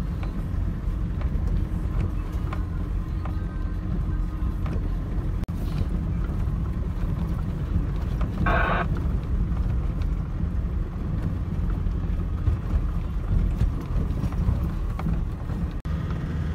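Turbo-diesel double-cab pickup driving slowly along a rough dirt track, heard from inside the cab: a steady low rumble of engine and tyres with small knocks and rattles from the bumpy surface. A brief sharper sound stands out about halfway through.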